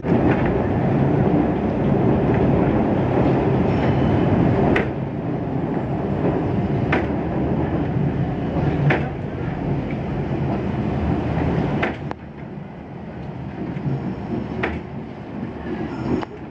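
A St. Charles line streetcar running on its rails: a steady rumble with a sharp click every couple of seconds, becoming quieter about twelve seconds in.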